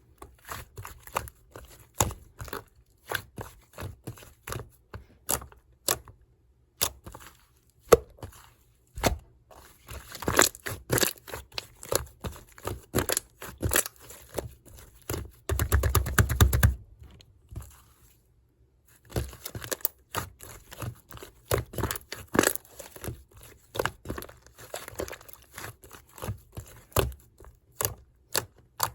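Slime being squished, folded and stretched by hand, giving irregular sticky clicks and pops, with a fast dense run of pops a little past halfway and two brief pauses.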